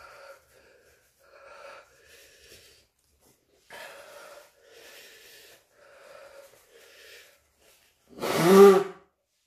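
A man breathing hard in quick, breathy puffs through his open mouth, from the burn of hot chilli peppers. Near the end he blows his nose into a tissue with one loud, honking blow.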